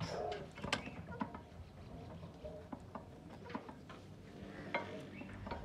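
Irregular metallic clicks and knocks of hands and tools working on an old diesel engine that is not running.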